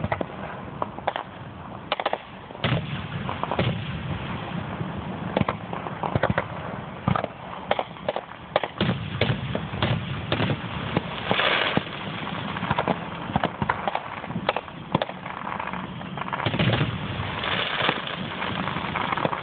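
Aerial fireworks display: shells bursting in a rapid, irregular string of sharp bangs.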